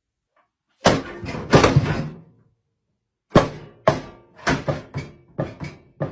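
A heavy thunk with a short clatter of further hits about a second in, then after a pause a steady run of hollow knocks, roughly three a second.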